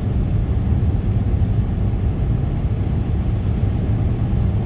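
Steady low rumble of a car's engine and tyres heard from inside the cabin while driving on a snowy highway.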